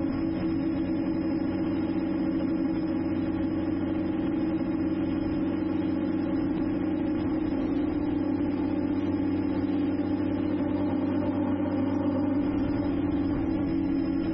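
Drone motors and propellers humming steadily at an unchanging pitch.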